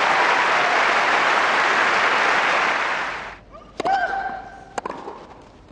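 Crowd applause, dying away after about three seconds. Then a tennis ball struck hard with a racket along with a player's short grunt, and a second hit about a second later.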